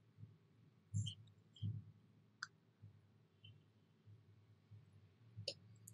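Faint computer mouse clicks, about four spread over several seconds, some with a soft low thud, against quiet room tone.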